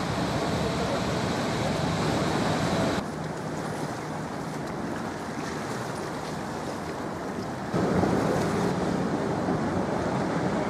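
Steady wind noise on the microphone with outdoor background hiss, no distinct events; the level drops abruptly about three seconds in and rises again near eight seconds.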